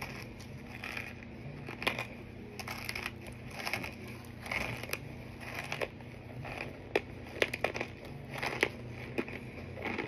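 Hard chunks of baked cornstarch being bitten and chewed: irregular crisp crunches, with a cluster of sharper ones about seven to nine seconds in.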